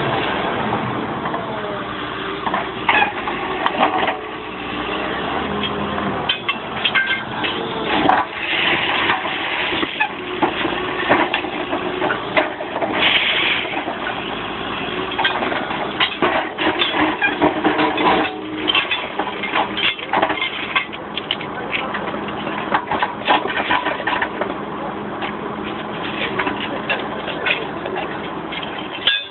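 Railway track-renewal machinery at work: engine noise under a dense, irregular run of knocks and clatter.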